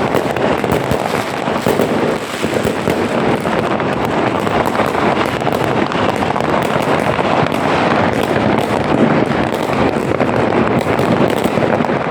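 Fireworks and firecrackers going off all around without pause, many bangs and crackles overlapping into one continuous din.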